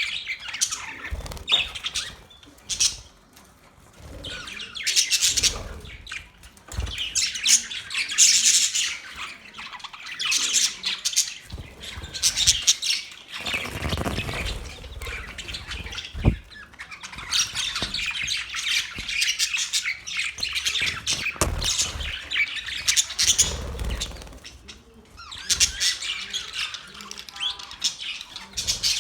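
Several budgerigars chirping and chattering at once, in busy waves broken by a couple of short lulls.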